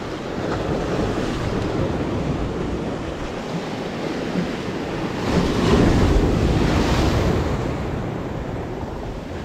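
Sea surf washing and breaking against the concrete tetrapods of a breakwater, with wind buffeting the microphone. The wash swells louder about five seconds in and then eases off.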